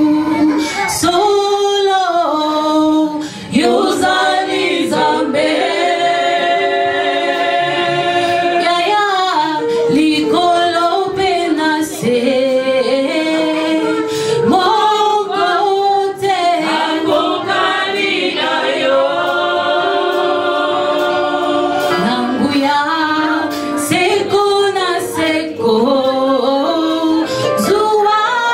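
A church congregation singing a worship song together, mostly women's voices, in long held notes.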